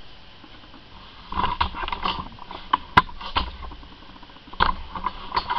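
Handling noise from a camera being picked up and moved: quiet for about a second, then an irregular run of knocks, rubs and sharp clicks.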